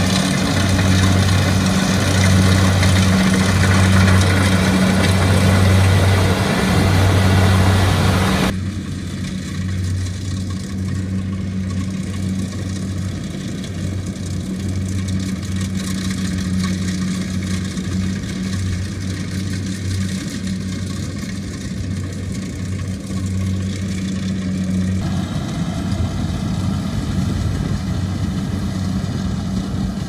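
Kubota rice combine harvester running steadily as it cuts through the rice, a continuous low engine and machinery hum. The sound shifts abruptly twice, about a third of the way in and again near the end.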